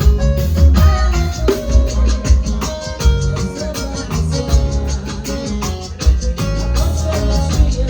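A live band playing an upbeat instrumental passage, with a steady drum beat over strong bass and sustained keyboard or guitar notes.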